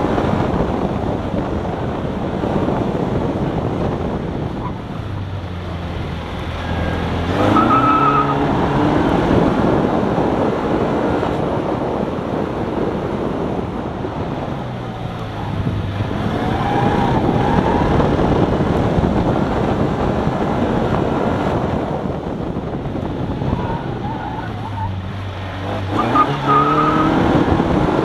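Honda CRX's swapped-in B20 four-cylinder engine driven hard through an autocross course, its revs falling and then climbing again three times under wind and road noise. Brief tire squeals come about eight seconds in and again near the end, in the tight turns.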